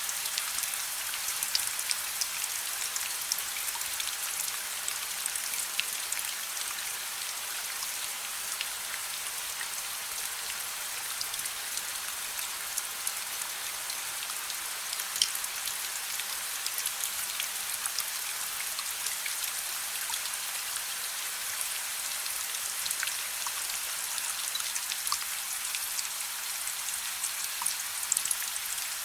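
Steady rain, an even hiss, mixed with a wood fire crackling softly: scattered small sharp pops and ticks throughout.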